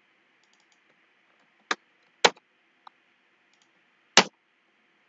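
Three sharp clicks and a fainter one, spread over a few seconds, from a computer's mouse and keyboard being worked, over a faint steady hiss.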